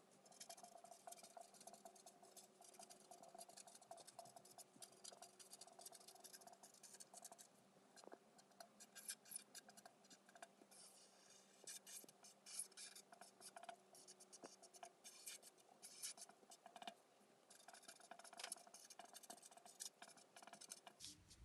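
Near silence: faint, irregular scratchy crackling over a low steady hum.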